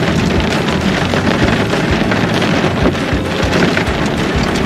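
Heavy rain falling on a car's roof and windows, heard from inside the car: a loud, steady, dense patter.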